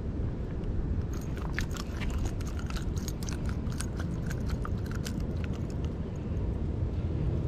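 A hooked spotted bay bass flopping on a rough concrete walkway: a quick, irregular run of crisp taps and slaps over a few seconds, dying away after it is lifted off the ground. A steady low rumble lies underneath.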